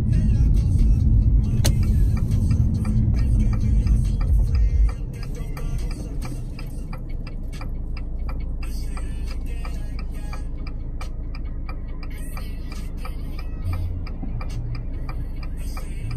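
Car cabin: low road and engine rumble while driving, which drops suddenly about five seconds in as the car comes to a stop. After that comes a steady run of regular clicks, a car's turn signal ticking while the car waits at a red light.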